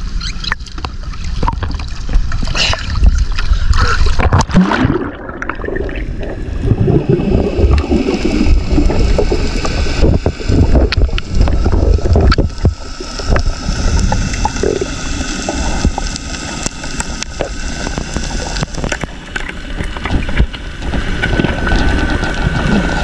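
Seawater sloshing and splashing around the camera at the surface, then, after it goes under about five seconds in, dull underwater rushing and gurgling of water moving past it. A low rumble runs throughout.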